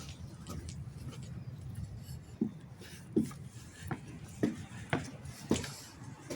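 Footsteps: a run of soft, evenly spaced thuds, roughly one every half second or so, beginning a couple of seconds in, over a low steady rumble.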